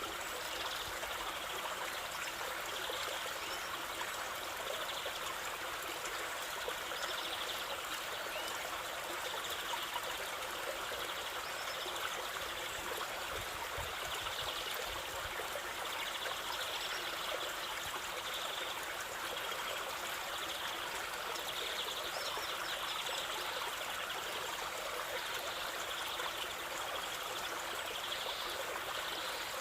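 Stream of water flowing and trickling steadily, with faint bird calls here and there.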